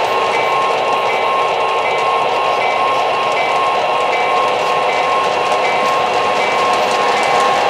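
O-gauge three-rail model freight cars rolling steadily along the track: a continuous rolling rumble with a steady high whine and faint regular clicking from the wheels.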